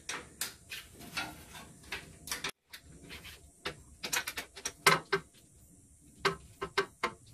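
Open-end wrench clicking and clinking against a grille mounting bolt as it is worked loose in short strokes, in irregular taps with short quiet gaps between.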